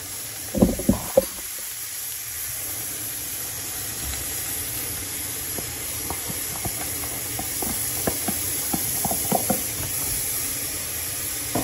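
Cooked red beans sizzling with a steady hiss in hot lard and fried garlic in a frying pan, with scattered small pops. A few sharp knocks come about half a second to a second in.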